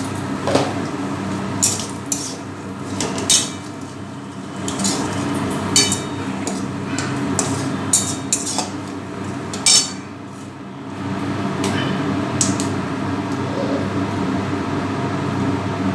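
Metal spatula scraping and knocking against a metal kadai while whole cumin and a dried red chilli are stirred in hot mustard oil: about a dozen sharp, irregular clacks over a steady background hiss.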